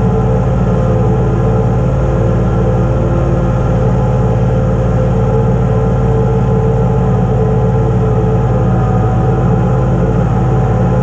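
Compact tractor engine running steadily under way, holding an even pitch with no revving.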